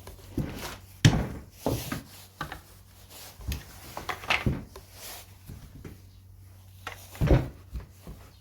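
Chainsaw parts being handled and fitted during reassembly: a series of knocks and clicks, the sharpest about a second in.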